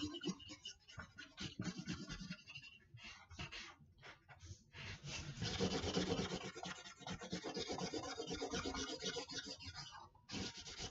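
Felt-tip marker scribbling rapidly back and forth on paper as a sheet is coloured in solid. The strokes thin out and break around three to five seconds in, run on steadily, then stop near the end.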